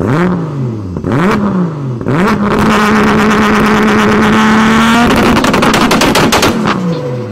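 Engine revving as a logo sound effect: three quick blips rising and falling in pitch, then held at high revs for a few seconds with rapid crackling, dropping away near the end.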